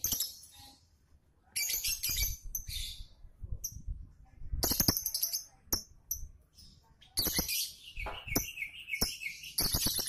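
Caged lovebird calling in bursts of shrill, high chirps, with a wavering trill about eight seconds in, then breaking into a fast, rapid chatter of repeated notes near the end.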